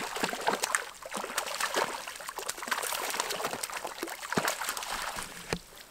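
A hooked trout thrashing at the water's surface as it is drawn into a landing net: a string of quick, irregular splashes that die down near the end.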